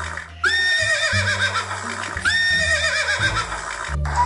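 Recorded moose call played from a phone's animal-sounds app, a whinny-like cry that rises and then wavers downward. It repeats twice, about two seconds apart, over low steady tones.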